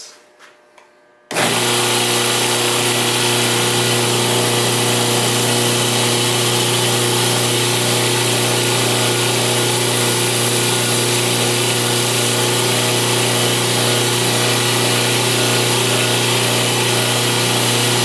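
2x72 belt grinder starts abruptly about a second in and runs at a steady pitch, a strong motor hum under a dense belt hiss. The steel blade of an old pocket knife is held against the running belt and ground.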